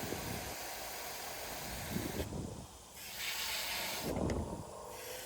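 Water spraying from a garden hose onto plants: a steady hiss that cuts out briefly twice, after about two seconds and again near the end.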